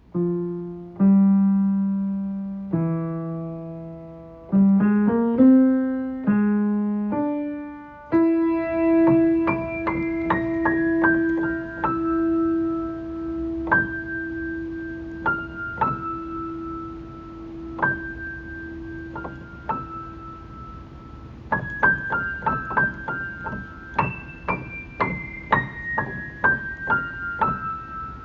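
Solo piano music. A few slow, spaced notes ring and fade in the first eight seconds, then a quicker melody of high notes plays over a held low note.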